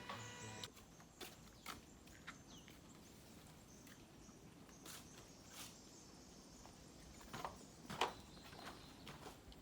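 Faint, irregular taps and rustles, about a dozen scattered over several seconds, in the quiet of the forest. A steady electronic tone cuts off about half a second in.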